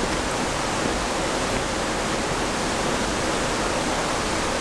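Steady, even rushing noise at a constant level, with no distinct events.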